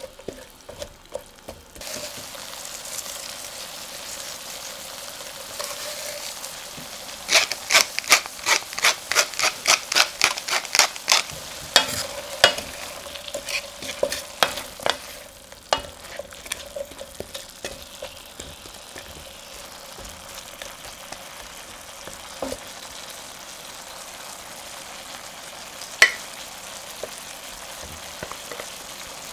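Vegetables sizzling in a stainless steel sauté pan as a wooden spatula stirs them, with a quick run of spatula knocks and scrapes against the pan about a quarter of the way in, and a single sharp knock near the end.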